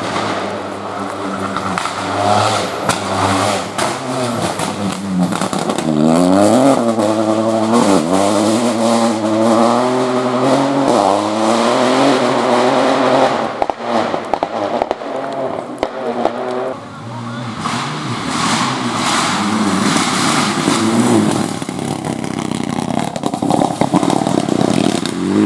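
Rally cars at speed on a gravel stage: turbocharged engines revving up and dropping back at each gear change as they pass, with gravel and stones spraying. Near the end a Mitsubishi Lancer Evolution X runs hard, dirt flying from its wheels.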